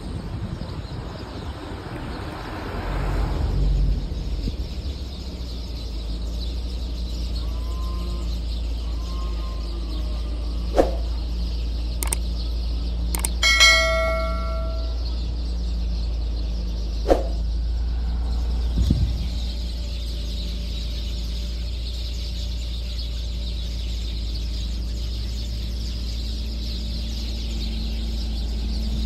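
Car driving along a paved road, heard from inside as a steady low engine and road rumble. In the middle a subscribe-button sound effect plays: a few sharp clicks and a short bell chime.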